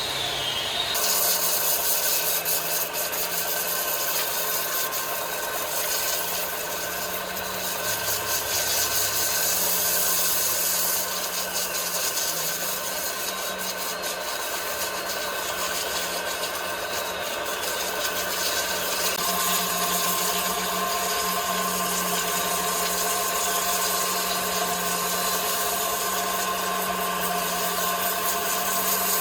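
Woodworking machinery running steadily, a motor hum under the rasping noise of wood being cut. The rasping gets louder about a second in, and the machine's tone shifts about 19 seconds in.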